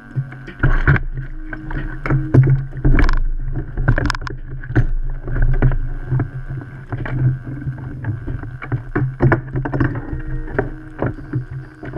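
Water lapping and sloshing against a kayak hull, with irregular knocks and small splashes over a steady low rumble.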